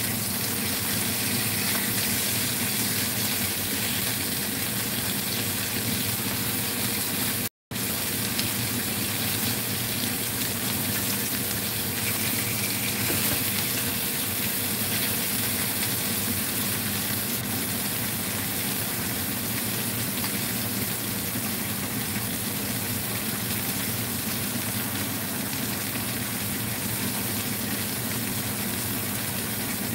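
Mayao fish pieces frying in a little oil in a nonstick wok: a steady sizzle with a low steady hum under it. The sound cuts out for a moment about eight seconds in.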